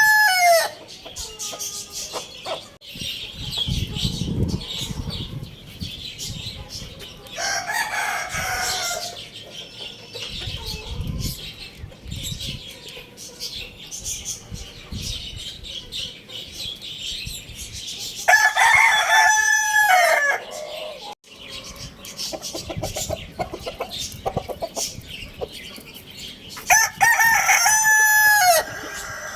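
A rooster crowing, long drawn-out crows of about two seconds each: one finishing just as it begins, a weaker one about eight seconds in, and two strong ones near the middle and near the end. Low rumbling noises come in between the crows.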